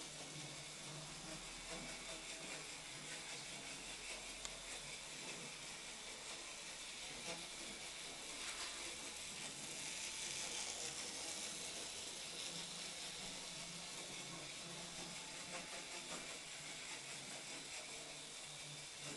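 Faint steady hiss with a low hum beneath it, slightly louder about halfway through.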